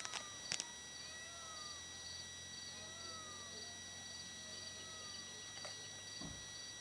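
Night insects, likely crickets, chirping in a steady pulsing high trill, with a short rising-and-falling call repeated about once a second. There are a few clicks near the start and a faint low hum from about a second in.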